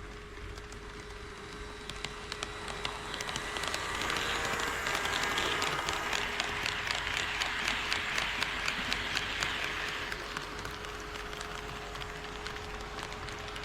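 HO scale model train running past on KATO Unitrack: wheels clattering with rapid, regular clicks over the rail joints, growing louder as it comes close and fading about ten seconds in, over a steady faint hum.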